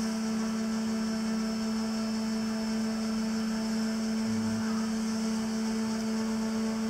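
Background music holding one steady low note.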